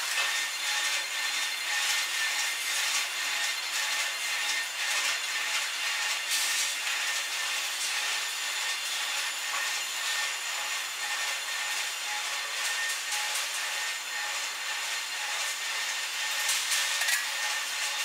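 Outdoor ambient noise played back at four times speed: a steady, rasping hiss with no low end.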